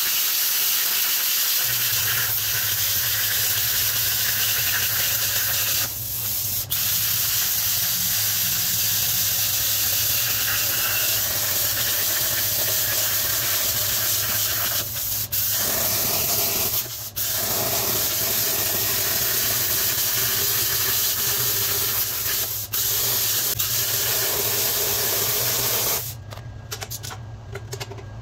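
Plasma cutter hissing steadily as its torch cuts through quarter-inch steel plate, stopping briefly a few times before it cuts off near the end. A low steady hum runs beneath it from about two seconds in.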